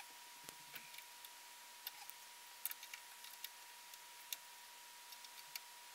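Faint, irregular light metallic clicks and ticks from wrenches working a lock nut on a lathe's belt-tension adjusting screw, over low hiss with a thin steady high tone.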